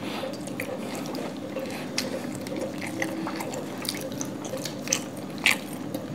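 Wet eating sounds of two people chewing paratha and chicken curry eaten by hand: scattered lip smacks and sharp mouth clicks, with no speech.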